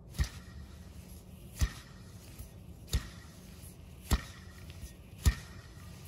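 Old drive-belt tensioner pulley from a Toyota Tundra 5.7L V8, turned by hand, giving five sharp clicks about one every second and a quarter. It is a slight noise from the worn tensioner, which the mechanic says could cause the engine's belt squeal.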